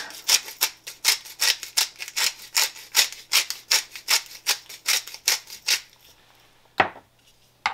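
Hand-twisted pepper mill grinding black peppercorns, a rhythmic crunching ratchet at about three strokes a second that stops about six seconds in, followed by two sharp knocks near the end.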